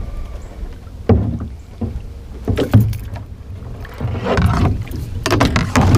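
Someone moving about on a bass boat's front deck while pushing with a long pole: a few sharp knocks against the boat in the first three seconds, then louder rustling and scraping with water sounds near the end.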